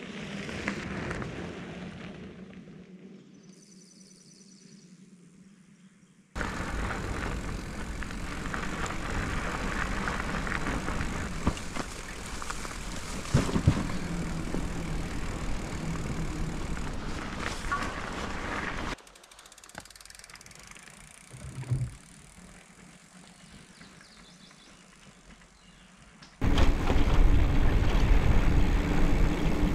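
A loaded bikepacking bicycle on a gravel forest road. First it rolls past close by and fades away; then comes a steady tyre noise and rattle with scattered knocks as it crosses rough ground and a wooden plank bridge. Near the end the front tyre's rumble on gravel is loudest.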